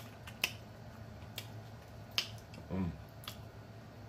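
Close-up eating sounds of snow crab legs picked and sucked at the mouth: a few sharp clicks about a second apart, and a short hum about three seconds in.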